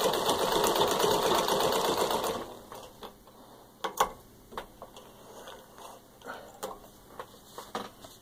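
A 1918 Singer 15-30 treadle sewing machine stitches through six layers of denim in a fast, even clatter, stopping about two and a half seconds in. After that come scattered clicks and fabric rustling as the denim is handled at the machine.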